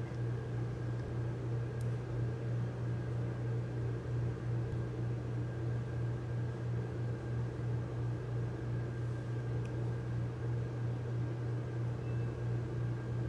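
Steady low background hum with a faint high-pitched whine over it, and a couple of faint ticks.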